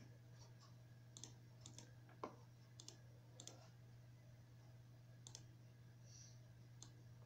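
Computer mouse clicking, about eight scattered clicks, most heard as a quick press-and-release pair, with one duller knock about two seconds in. A low steady hum runs underneath.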